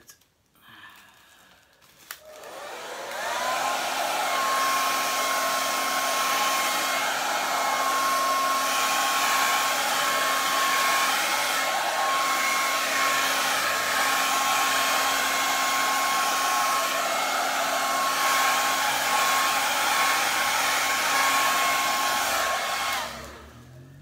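Hair dryer switched on about two seconds in, its whine rising as the motor spins up, then running steadily with a high motor whine over the rush of air as it blows wet acrylic paint across a canvas. It switches off near the end and winds down.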